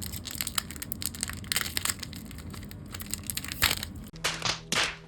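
A Magic: The Gathering booster pack's plastic wrapper crinkling as it is handled and opened: a run of irregular sharp crackles, with a few louder rustles near the end.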